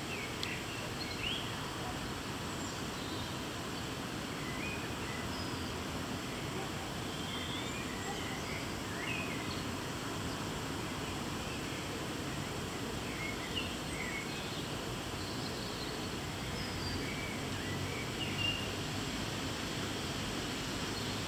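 Small birds giving short chirps here and there over a steady background noise.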